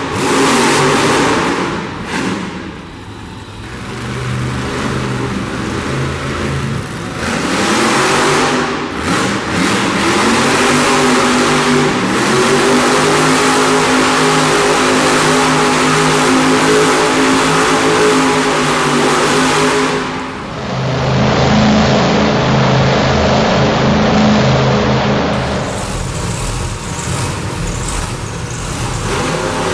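Monster truck engines revving hard, the pitch sweeping up and down as the trucks spin donuts. About two-thirds of the way through, the sound shifts to a lower, steadier engine note.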